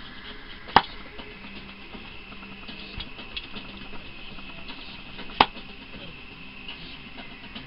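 Kitchen knife slicing red potatoes on a cutting board: light clicking as the blade cuts through, with two sharp knocks of the blade striking the board, about a second in and again about five and a half seconds in.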